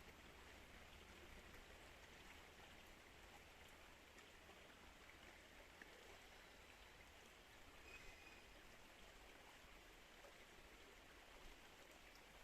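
Faint, steady rushing of flowing river water.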